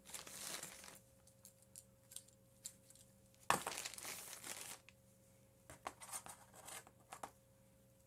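Plastic parts bags crinkling and cables being handled: a short burst at the start, a longer one about three and a half seconds in, and light scattered clicks and rustles between.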